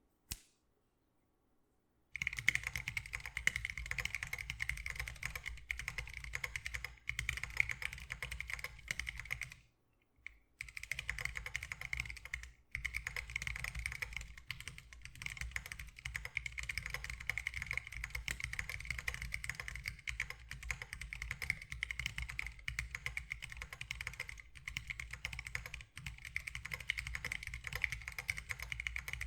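Fast, continuous typing on a Lily58 Pro split mechanical keyboard with Zealios V2 62g tactile switches lubed with Tribosys 3203 and MDA Big Bone keycaps: a dense stream of keystrokes. A single click comes first, the typing starts about two seconds in, and it stops briefly twice, around ten seconds and thirteen seconds in.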